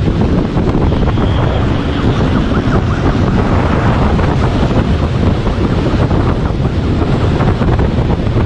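Steady, loud wind buffeting on the microphone of a camera moving at speed, with vehicle and road noise under it.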